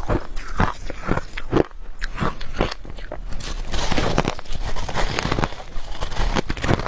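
Freezer frost being bitten and chewed close to the microphone: a run of short crunches, thickest between about three and five seconds in as a fresh handful is bitten.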